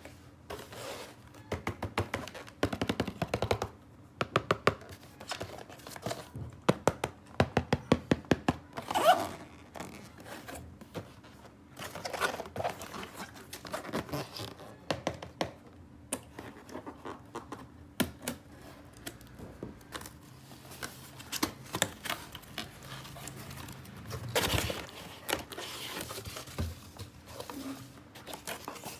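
Hands unboxing and handling plastic toys and their packaging: a string of clicks, taps and light knocks with scraping and crinkling, including a quick rattle of clicks about a third of the way in and a firmer knock near the end.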